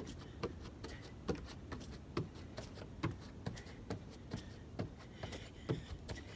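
Feet landing in a steady rhythm of jumping jacks, about two thuds a second.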